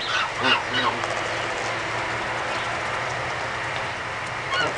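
Geese honking: a quick run of three or four short honks in the first second, then another couple of honks just before the end, over a steady background hiss.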